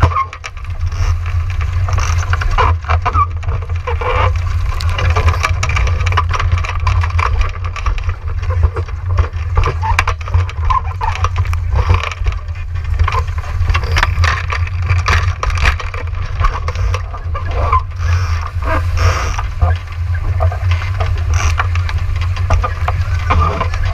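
Wind buffeting the onboard camera's microphone as a steady low rumble, with waves and spray splashing and knocking against a Laser Vago dinghy's hull as it sails fast through rough, gusty water.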